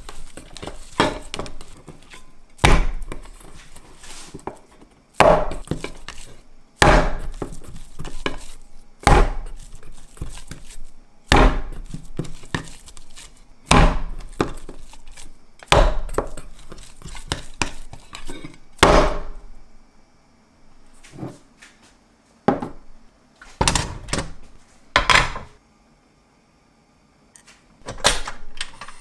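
Ground-meat mixture being beaten by hand, slapped down hard into a stainless steel bowl about once every two seconds, with quieter kneading knocks between the slaps. This beating firms up the mince and makes it elastic. The slapping stops a few seconds before the end.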